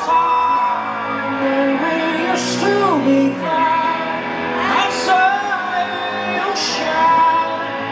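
Live band playing a song's instrumental intro: sustained chords under a melody line that slides between notes, with a few cymbal crashes.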